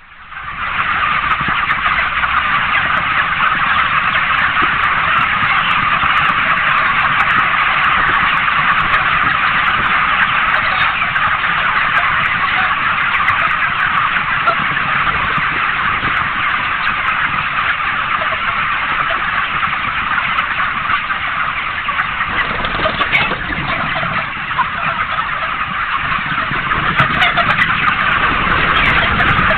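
A large flock of chickens clucking and chattering together in a dense, steady din.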